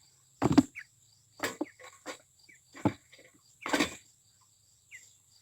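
Meat chickens being handled for weighing: four short rustling knocks about a second apart, with a few faint short peeps in between. A steady high insect buzz runs behind.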